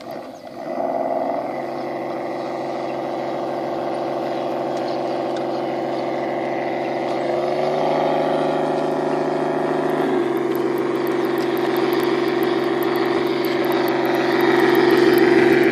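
Steady whine of small electric motors, heard as several steady tones together that step in pitch about halfway through and shift again a couple of seconds later, growing louder near the end.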